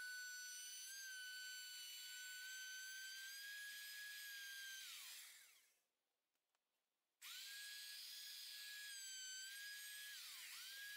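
Ryobi full-size router with a flush-trim bearing bit running at a steady high whine while trimming a laminate edge. About five seconds in it is switched off and winds down to silence. A second or so later it starts again and spins up quickly, and near the end its pitch dips sharply and recovers.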